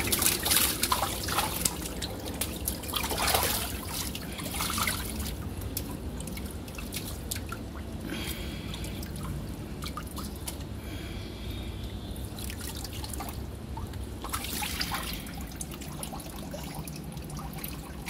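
Water splashing, trickling and dripping as a hand net scoops fish out of a nearly drained pond and water streams back off the mesh. The splashing comes in irregular spells, loudest at the start, around three seconds in and again near the end.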